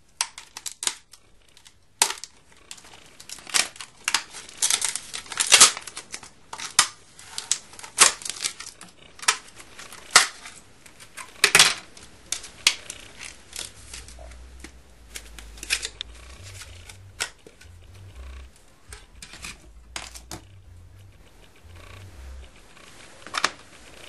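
Hard plastic blister pack of new RAM sticks being pried open by hand: a quick run of sharp plastic snaps, clicks and crinkles, densest in the first half and thinning out later.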